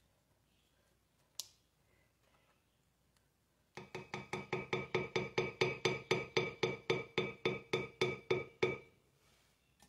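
Silicone spatula knocking against the inside of a glass blender jar while working a thick mixture: a quick, even series of glassy taps, about five a second, each ringing briefly, lasting about five seconds after a single click.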